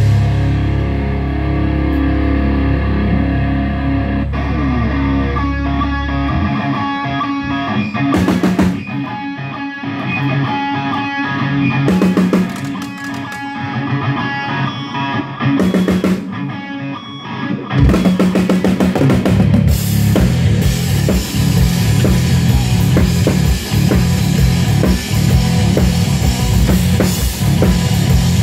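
Live rock band at a sound check: electric guitar, bass and drum kit. A held low bass note opens it, then stop-start guitar phrases are broken by drum and cymbal hits, and about two-thirds of the way through the full band comes in and plays steadily.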